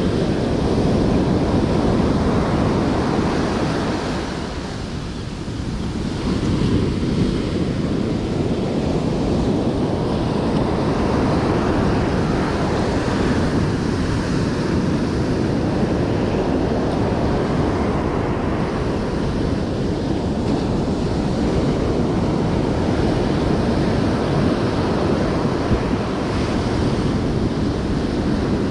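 Ocean surf breaking and washing up the beach, with wind buffeting the microphone. The noise eases briefly about four seconds in, then builds again.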